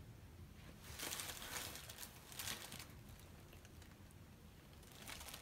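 Faint rustling and handling noise as a lipstick is handled and swatched, in a few soft bursts.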